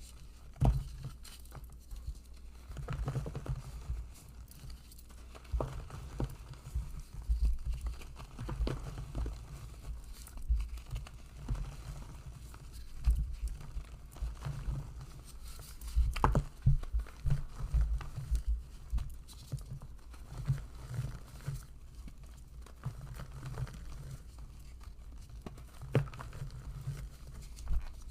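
Blocks of gym chalk crushed and crumbled by hand, with soft dull thuds and crunching in irregular bouts and a few sharper cracks.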